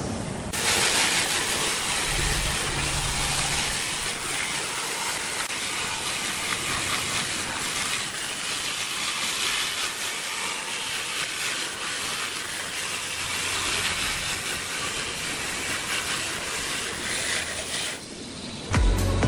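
Handheld angle grinder with an abrasive disc sanding and shaping carved hardwood: a steady grinding hiss that stops shortly before the end.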